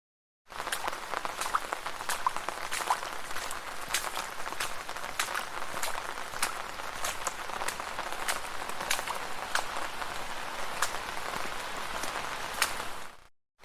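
Rain falling on a street: a steady dense patter with many sharp individual drop hits. The sound starts about half a second in and cuts out briefly near the end.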